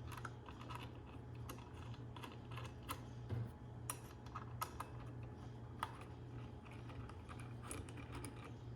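Light, irregular clicks and taps of small metal parts being handled: the arbor bolt and washer being fitted by hand onto a chop saw's blade spindle. A low, steady hum runs underneath.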